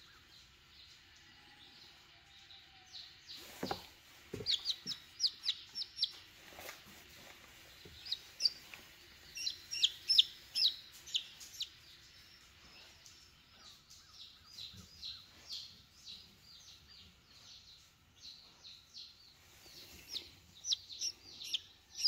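Newborn chicken chick peeping, runs of short high chirps that come and go. A couple of knocks sound about four seconds in.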